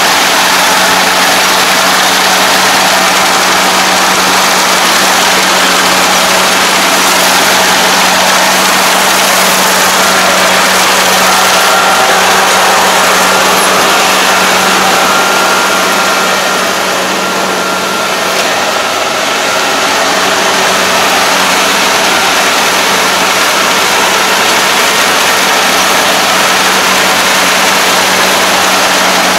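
Rice combine harvester running steadily while reaping standing rice: its engine and cutting header make a loud, continuous mechanical drone over a constant low hum. The level dips briefly a little past halfway.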